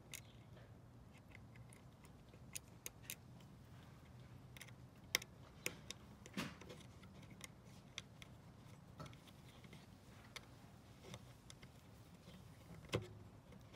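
Small, irregular clicks and taps of a hex key and little brass standoffs against a metal Raspberry Pi case as they are fitted by hand, with a few louder clicks among them.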